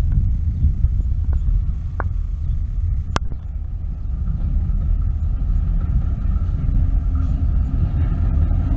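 Diesel freight locomotive approaching: a low rumble, with the engine's steady hum coming up and growing louder over the last few seconds. Three sharp clicks in the first three seconds.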